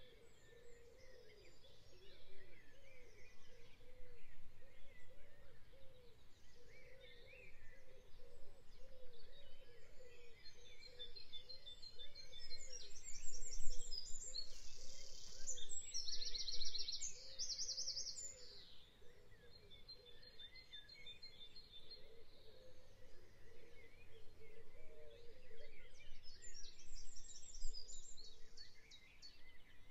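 Woodland birdsong: scattered chirps, with loud fast trills from a small songbird in the middle and again near the end.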